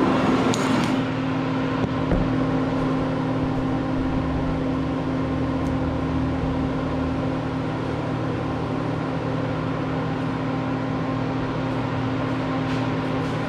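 Steady electrical hum of running shop equipment, unchanged throughout, with a brief rustle about half a second in and a few faint clicks.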